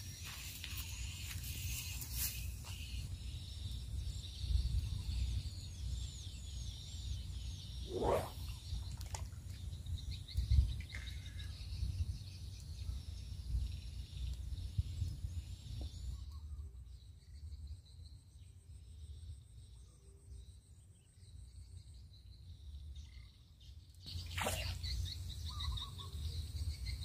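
Wind rumbling on the microphone with birds chirping, and a quick swish about eight seconds in and another near the end as a long fishing pole is swung out in a cast.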